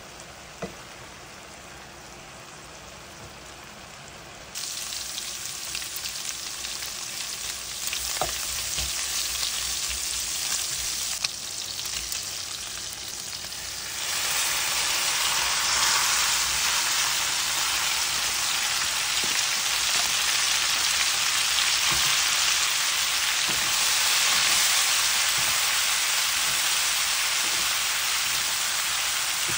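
Food sizzling in a frying pan as pork and string beans are stir-fried with a wooden spatula, with a few knocks. The sizzle jumps much louder about halfway through, as a bowl of raw string beans is tipped onto the browned pork.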